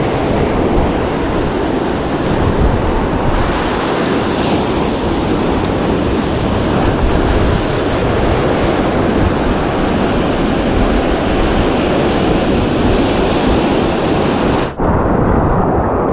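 Surf breaking and washing over a rocky shore, with wind buffeting the microphone. Near the end the sound cuts off abruptly and comes back duller, with less hiss.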